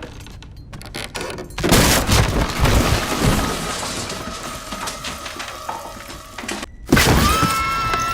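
Film-trailer sound effects: a loud crash of impacts that trails off into noise, a brief drop-out, then another sharp hit followed by a steady high ringing tone.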